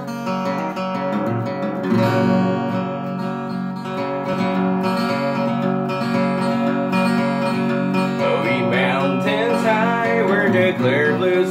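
A Takamine GX11ME-NS 3/4-size acoustic guitar strummed in a bluegrass-style intro. A man's singing voice comes in over it about eight seconds in.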